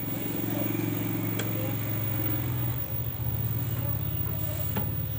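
An engine running steadily with a low hum that dips briefly about three seconds in, then carries on with a fine pulsing beat. Two sharp clicks are heard over it.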